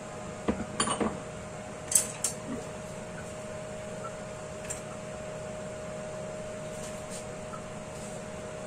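Steady hum of a kitchen range hood fan, with a few clinks and knocks of a sauce bottle and cookware being handled in the first few seconds, the sharpest about two seconds in.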